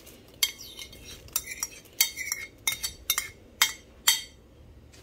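A steel spoon scraping and tapping against a serving bowl, about a dozen sharp clinks, as shredded chicken is knocked out of it into a pot of soup.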